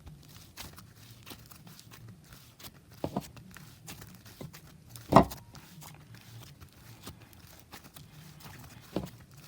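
Slime being stretched and pressed by hand for an inflation test: a string of small sticky clicks and crackles, with three louder pops, the loudest about five seconds in.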